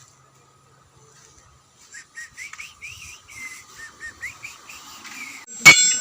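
A run of short, quick chirps, each rising or falling in pitch, like a bird singing or someone whistling. Near the end comes one loud, sharp metallic clang that rings on briefly.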